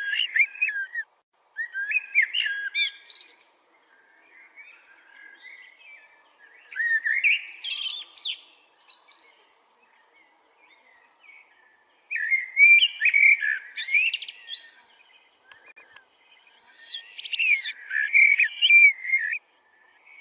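A bird singing in a series of bursts of rapid chirping, whistled notes, each one to three seconds long with short gaps between; the last two bursts are the loudest.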